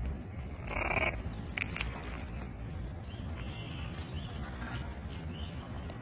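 A macaw biting into a peanut shell with its beak: a short scrape about a second in, then a few sharp cracks of the shell, followed by fainter nibbling.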